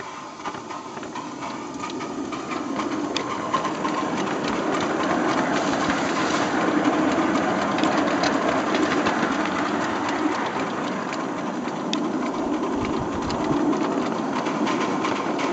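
7¼-inch gauge live-steam locomotive pulling away and running along the track: steady exhaust beats and running gear, getting louder over the first few seconds as it gets under way and then holding steady.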